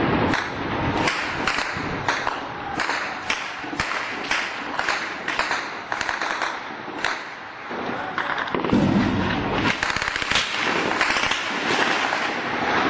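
Secondary detonations of an exploding ammunition depot: a string of sharp cracks and pops, about two or three a second, then a deep rumble about nine seconds in followed by denser crackling.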